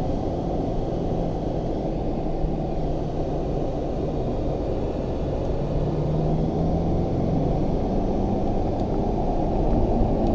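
Car engine and tyre-and-road rumble heard inside the cabin as the car is driven on a race track, a steady drone whose engine note rises slightly past the middle.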